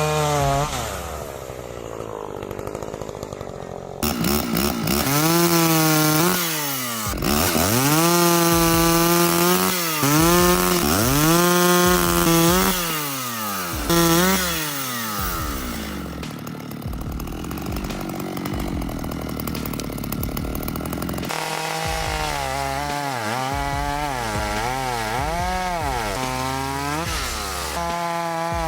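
Shindaiwa 757 two-stroke chainsaw running and cutting wood, its engine pitch repeatedly climbing and sagging as the throttle is worked. The sound changes abruptly a few times, and near the end it revs up and down in quick cycles.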